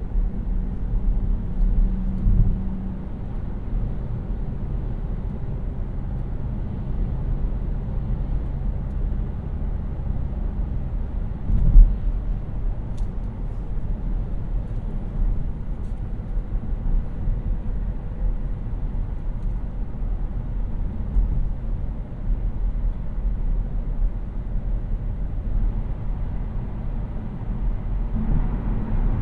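A 2018 Kia Niro 1.6 GDi Hybrid driving: steady low road and tyre rumble with a faint engine hum that drifts in pitch. There is a single sharp thump about twelve seconds in.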